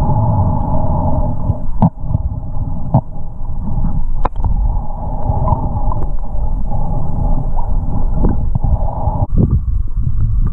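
Underwater rumble and water noise picked up through a camera's waterproof housing, with a steady hum that fades out about nine seconds in and a few sharp clicks.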